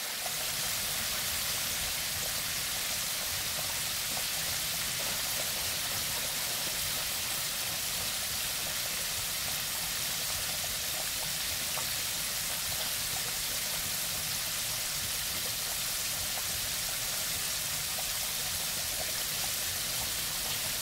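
Flour-coated chicken pieces deep-frying in hot oil in an enamelled cast-iron pot: a steady, even sizzle of bubbling oil.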